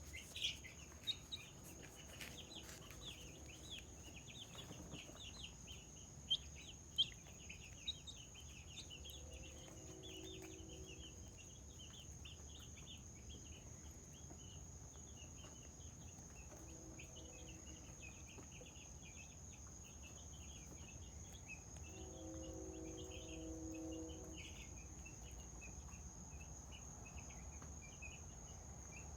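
Chickens making soft, contented sounds: a constant flurry of short high chirps, with a few longer low, drawn-out calls, the longest about 22 to 24 seconds in. A few sharp clicks come in the first few seconds, and a steady high-pitched tone sounds throughout.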